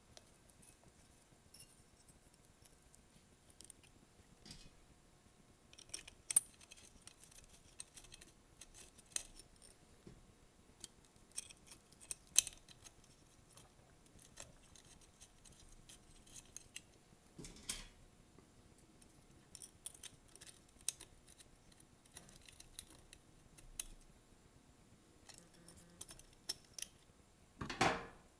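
Scattered light metallic clicks and clinks of small engine parts being handled by hand, the exhaust gasket and muffler pieces of a two-stroke trimmer being fitted back onto the exhaust port, with a longer scrape near the end.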